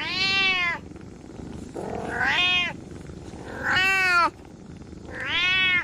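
A domestic cat meowing four times, each meow drawn out for just under a second and rising then falling in pitch.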